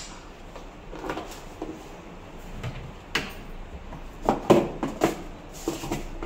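Overhead kitchen cabinet being opened and things handled on its shelf: a scatter of short knocks and clatters, the loudest about four and a half seconds in.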